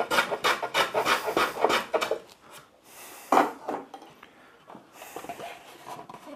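Quick, short strokes of a small hand plane taking shavings off the end grain of a pine stool leg, about six strokes a second for two seconds, trimming a high leg so the stool stops rocking. A single knock follows about three seconds in as the tool is set down on the bench, then light handling of the stool.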